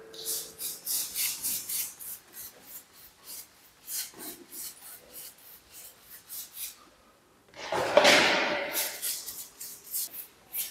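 An applicator spreads gritty, sand-laden decorative paint across a wall in quick back-and-forth strokes, a rasping scrape several times a second. After a short pause, one longer, louder sweep follows about three-quarters of the way through.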